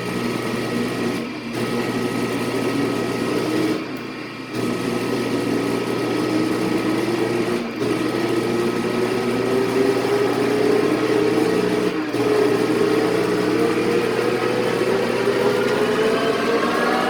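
Victor lathe running in its high-speed range: a steady machine hum with a whine that slowly rises in pitch, climbing faster near the end as the spindle speeds up.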